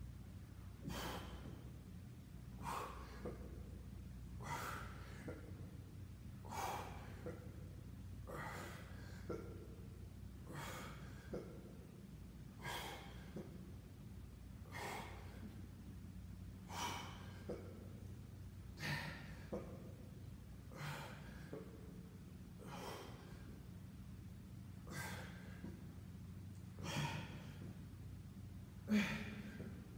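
A man breathing hard from the exertion of leg raises, a forceful breath about every two seconds, growing louder near the end, over a steady low hum.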